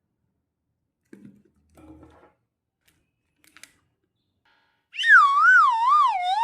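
A cartoon comedy sound effect: a loud wobbling tone that slides downward in pitch, starting about five seconds in after a few faint rustles.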